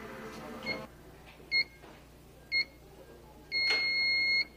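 Treadmill control panel beeping as its buttons are pressed to start it: short electronic beeps about a second apart, then one longer beep near the end.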